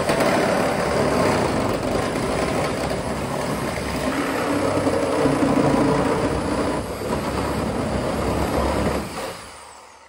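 Reciprocating saw running and cutting through the rusted steel roof pillar of a 1973 Plymouth Scamp. The cut goes easily; the saw stops and the sound fades out about nine seconds in.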